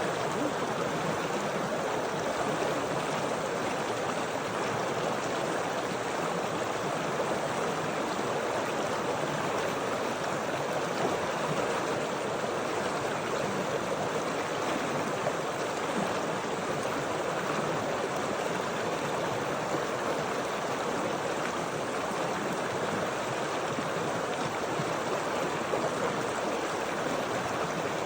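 Water of a stream flowing steadily over stones, an even rushing and babbling without change.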